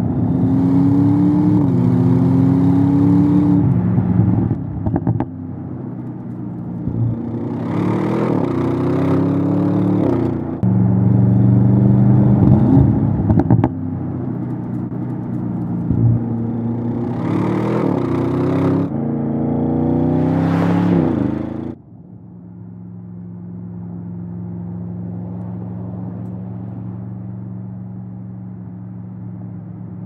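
Audi RS7 Sportback Performance's 4.0-litre twin-turbo V8 accelerating hard, engine and exhaust note climbing in pitch and dropping back at each gearshift over several pulls. About three-quarters of the way through it cuts off abruptly to a quieter, steady drone.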